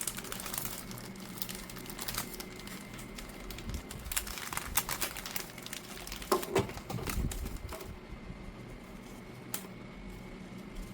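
Cookie snack packaging being handled: rapid crinkles and clicks of the wrapper, with a louder knock about six seconds in, thinning out over the last few seconds.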